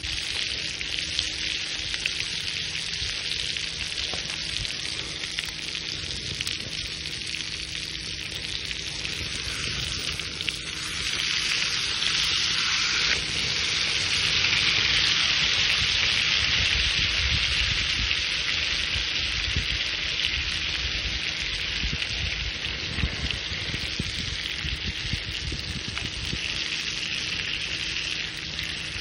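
Thick-cut steak sizzling on a hot surface over a wood fire pit: a steady hiss with small crackles, which swells louder for a while in the middle.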